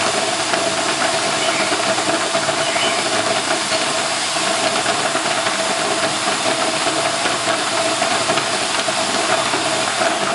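Electric drill running steadily, spinning a homemade sandpaper-lined potato peeler: a steady motor whine under a continuous rasping hiss as the potatoes scrape against the sandpaper.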